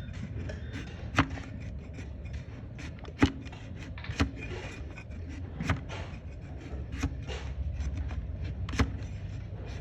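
A hoof-trimming blade cutting and paring a donkey's hoof: a series of sharp cutting knocks, about six loud ones at irregular intervals, with softer scrapes between, over a steady low rumble.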